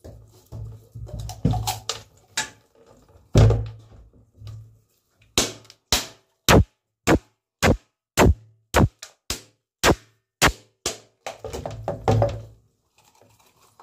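Repeated sharp knocks, about two a second, of a machete striking a dry coconut to crack it open. Splashing tap water near the end.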